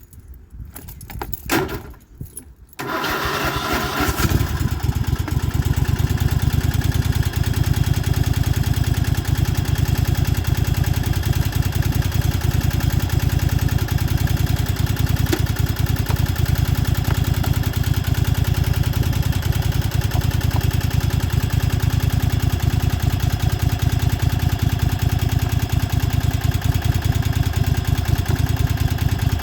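Riding lawnmower engine catching after a few clicks about three seconds in, then running steadily, started while its low battery is on charge.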